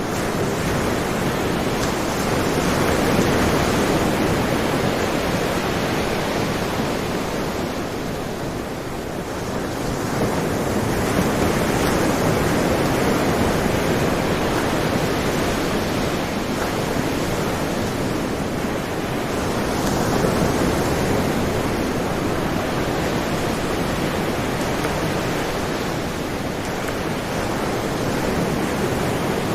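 Sea surf: a continuous rush of waves that swells and eases slowly, about every eight or nine seconds.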